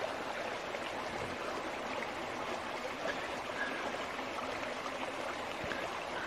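Mountain creek flowing, a steady sound of running water.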